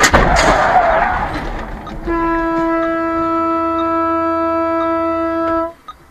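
A sudden loud crash of noise lasting about a second and a half, then a car horn sounding one steady note for about three and a half seconds before cutting off.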